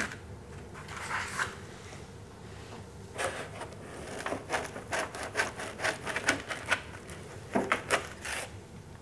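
Grey packing foam blocks rubbing and scraping against the machine's rails and housing as they are worked loose and pulled out by hand. There is a soft rustle about a second in, then a quick run of short rubs and squeaks through the second half.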